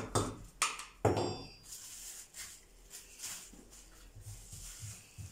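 Metal spoon clinking and scraping against a ceramic bowl of salt, three sharp clicks in the first second. Quieter rubbing and light knocks follow as salt is packed into a fish's gills.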